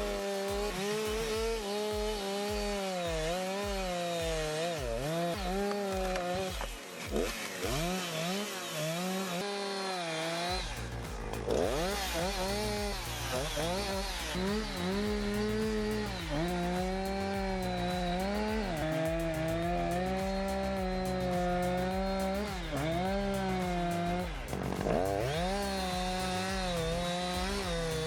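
Two-stroke chainsaw running at high revs, its pitch dipping and recovering again and again as the chain bogs into the wood. A steady low rumble joins it about ten seconds in.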